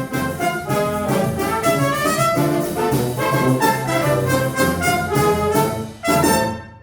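Brass-led wind band playing a lively passage with trumpets and trombones over a bass line. Near the end it eases off, then hits one short accented final chord that cuts off.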